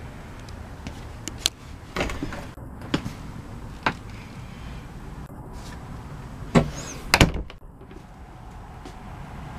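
Interior doors of a 1998 Fleetwood Prowler Lite travel trailer being handled: a series of latch clicks and knocks, with the two loudest close together about seven seconds in.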